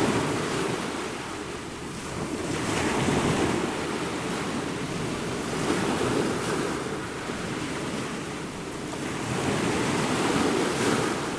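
Ocean waves breaking and washing on a shore, the surf swelling and falling back in slow surges every few seconds.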